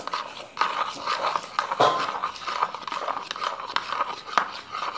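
A spoon clicking and scraping against a plastic mixing bowl as it is stirred, in irregular small clicks, with one short tone about two seconds in.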